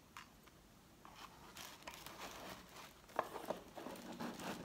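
Soft rustling and crinkling of black packaging paper as a small jewellery box and necklace are handled, with a few light clicks about three seconds in.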